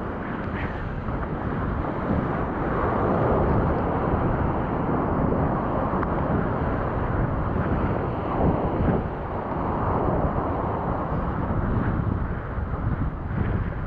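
Wind buffeting the microphone over a steady rushing noise of breaking surf, swelling and easing a couple of times.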